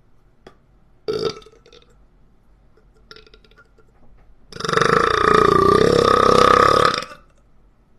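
A person belching: a short sound about a second in, then a long, loud burp of about two and a half seconds held at a steady pitch.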